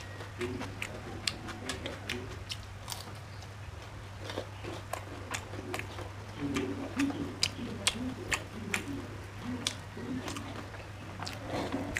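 A person eating rice by hand: chewing and mouth smacks with many short sharp clicks scattered throughout, over a steady low hum.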